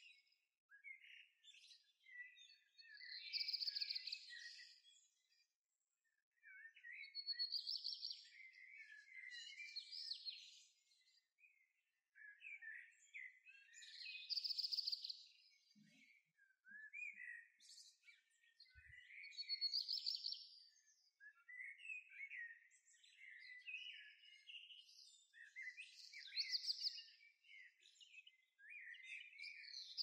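Small songbirds singing and chirping, a bright song phrase coming back about every five or six seconds with shorter chirps between.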